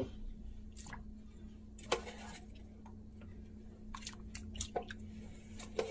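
Metal kitchen tongs clicking and tapping against a stainless steel saucepan as shrimp are moved in the water: a few scattered light clicks, over a faint steady hum.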